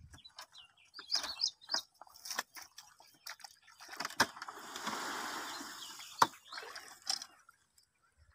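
Wet mud and puddle water sloshing for about two seconds as a donkey cart overloaded with mud tips backward in a muddy puddle, with a few sharp knocks from the wooden cart, the loudest near the end of the sloshing.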